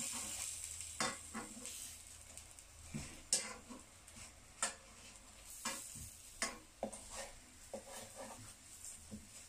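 Round eggplant slices sizzling in a nonstick frying pan whose oil has mostly been soaked up. The sizzle is broken by irregular sharp taps and scrapes of a metal fork and wooden spatula against the pan as the slices are pressed and moved.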